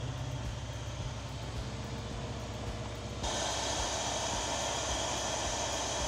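Moskvich 2140's four-cylinder engine idling steadily with a low, pulsing rumble, just after a first start following 20 years in storage. About three seconds in, a steady hiss joins it.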